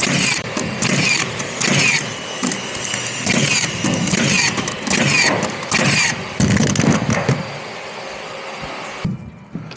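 Power tool running in short repeated bursts, each with a brief whine, roughly one burst every second, stopping about nine seconds in.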